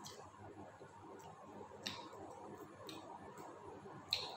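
Quiet eating sounds: a few short, sharp clicks and smacks from eating rice and fried fish by hand off a banana leaf, the loudest near the end.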